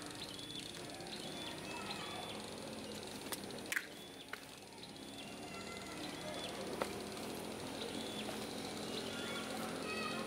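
A small bird repeats a short chirp in runs of several notes over a faint steady hum. Sharp clicks come a few times, loudest around the fourth and seventh seconds, as the plastic buckles and clips on a motorcycle tail bag are handled and fastened.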